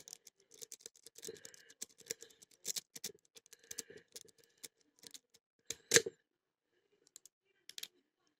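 A metal lock-pick rake scraping and clicking against the spool pins of a Bane 45 mm pin-tumbler padlock under a tension wrench, in quick irregular small clicks. About six seconds in comes one much louder sharp click, followed by only a few faint ticks.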